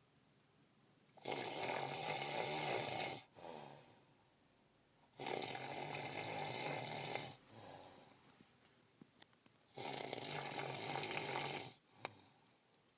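A person snoring heavily: three loud, rough snores of about two seconds each, about four seconds apart, each trailing off into a quieter breath.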